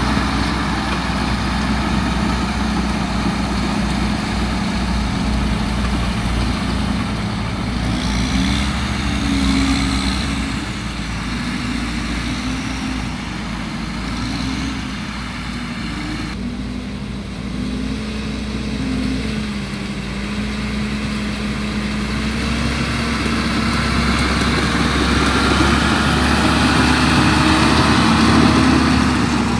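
Engine of a bagasse-pusher tractor running steadily during a system test, its pitch wavering a little midway and growing louder toward the end.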